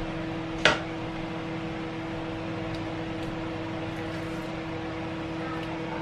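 Steady mechanical hum with one constant tone. A single sharp tap about a second in, a utensil knocking against the pot.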